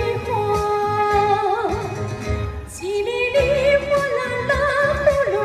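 A woman singing a Chinese pop song over a backing track: long held "ah" notes with vibrato, then, after a short dip about three seconds in, a busier line of sung syllables.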